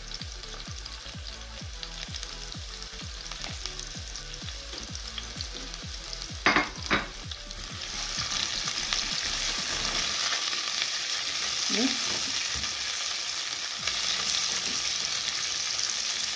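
Onions frying in hot oil in a pan, a steady sizzle that grows louder about eight seconds in. Two sharp knocks come about six and a half seconds in.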